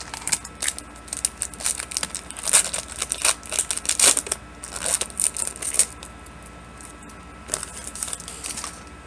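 A trading-card pack wrapper being torn open and crinkled, with cards shuffled between the fingers: a dense string of sharp rustles and crackles, busiest in the first six seconds and thinning out after.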